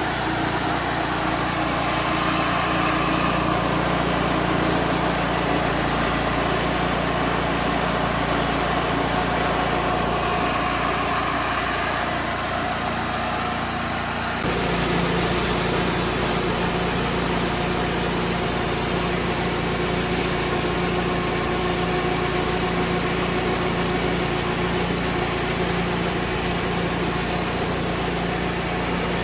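Sawmill engine running steadily, with an abrupt shift in its sound about halfway through.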